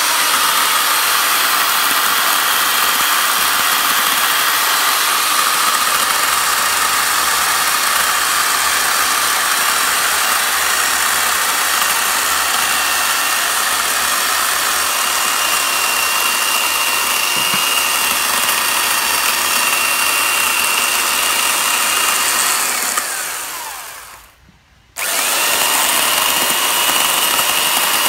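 Small electric chainsaw running steadily with a high whine as it carves juniper wood. About five seconds before the end it is let off, winds down in pitch to near silence for about a second, then starts straight back up to full speed.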